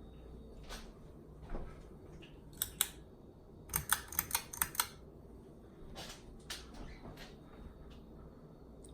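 Sharp mechanical clicks over a low steady hum: two close together about two and a half seconds in, then a quick run of about six near the middle, with softer clicks scattered before and after.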